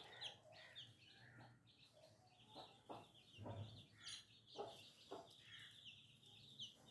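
Baby chicks peeping, a steady stream of short, high, falling chirps, faint, with a few soft knocks in between.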